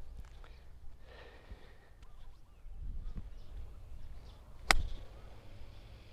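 A 7-iron striking a golf ball off the grass: a single sharp click about three-quarters of the way through.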